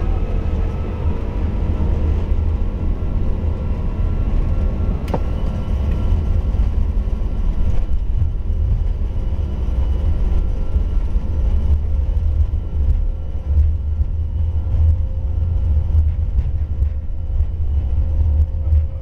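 Airbus A330 on its takeoff roll heard from inside the cockpit: a loud, steady low rumble with a faint steady whine above it. A single click sounds about five seconds in.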